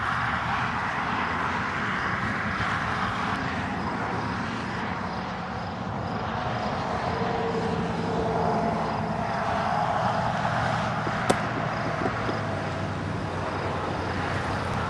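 Union Pacific 844, a 4-8-4 steam locomotive, approaching at speed with its train: a steady rushing running noise. A single sharp click comes about eleven seconds in.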